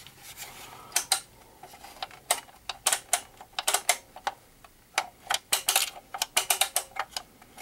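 Loose pieces rattling and clicking inside a GE two-way radio control head as it is tipped and turned over by hand: irregular sharp clicks, in small clusters, coming thicker from about halfway on.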